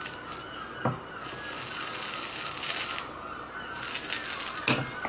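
Flux crackling and hissing under a soldering iron as a burnt SMD MOSFET is desoldered from a circuit board, in two long stretches, with two sharp knocks of the tweezers and board, about a second in and near the end.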